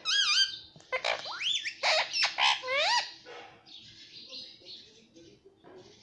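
Male Indian ringneck (rose-ringed) parakeet vocalizing: a run of loud whistled calls that swoop up and down in pitch for about three seconds, then softer, quieter chatter.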